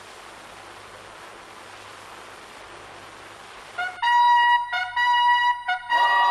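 Steady surface hiss with a faint low hum in the silent gap between tracks of a vinyl LP. About four seconds in, a trumpet-led brass intro of the next schlager song starts with loud held notes.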